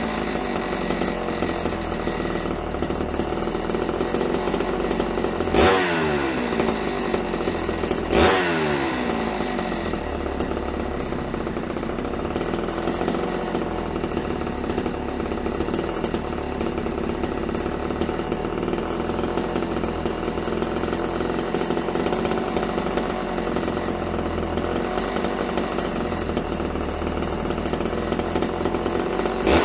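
Homelite Super XL Automatic two-stroke chainsaw engine idling steadily on the bench with its bar and chain off, while its carburetor is tuned to hold an idle. It is blipped twice, about six and eight seconds in, each rev falling quickly back to idle.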